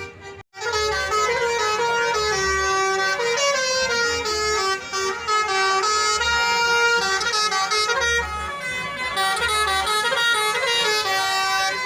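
Telolet horn, a multi-tone musical horn, playing a tune of quick stepped notes. It starts abruptly about half a second in, after a brief gap.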